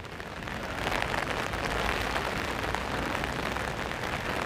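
Steady rain pattering on an umbrella held overhead, a dense patter of drops that swells a little in the first second and then holds steady.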